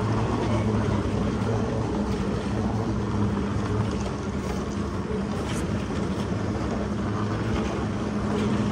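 Steady low mechanical hum of a moving walkway running, with a few faint clicks.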